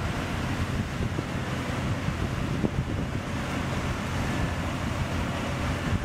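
The Ultra Heavy-Lift Amphibious Connector (UHAC) prototype crawling over sand on its flotation-pad tracks: a steady low engine rumble with a few clanks from the track, mixed with wind buffeting the microphone.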